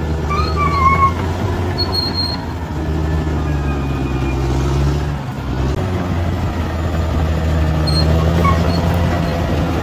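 Bulldozer's diesel engine running steadily under work, easing off briefly about five seconds in and then picking up again. A few short high squeaks sound about half a second to a second in.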